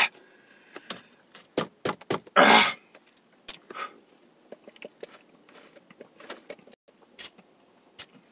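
A man sucking a frozen slush drink through a plastic straw, with scattered short clicks and sucking noises. About two and a half seconds in there is one loud, harsh breath sound.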